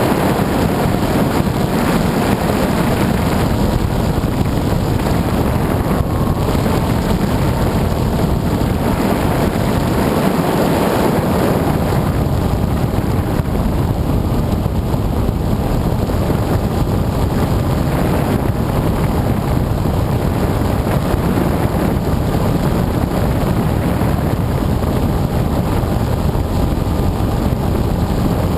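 Steady wind rush over the onboard microphone of an FPV model aircraft in flight, mixed with the drone of its motor.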